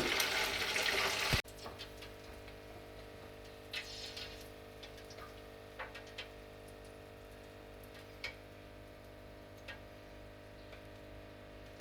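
Hot oil sizzling around battered kingfish pieces as they deep-fry, cutting off abruptly about a second and a half in. After that a quiet room with a steady low hum and a few faint, scattered clicks.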